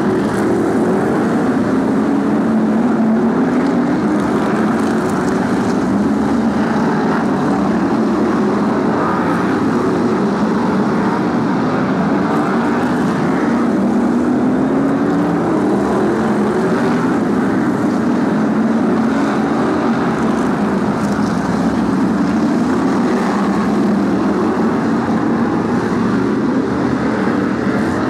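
A pack of BriSCA F1 stock cars racing, their big V8 engines running loud and continuous. Several engines overlap, repeatedly rising in pitch as the cars accelerate out of the bends.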